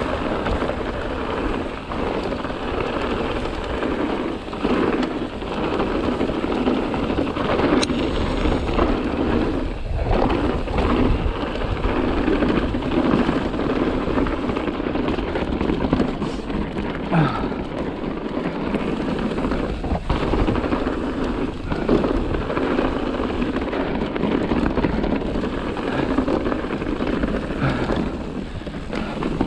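Mountain bike riding down a rough trail: a steady rushing of tyres and air, broken by frequent clattering knocks and rattles from the bike over the ground.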